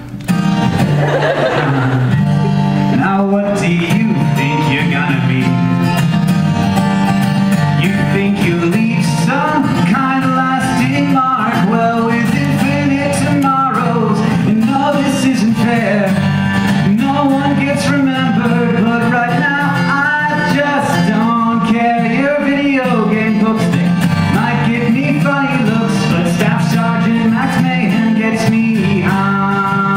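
A man singing a song to his own strummed acoustic guitar.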